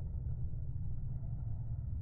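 Low, steady rumble of a pair of distant jet aircraft flying in formation.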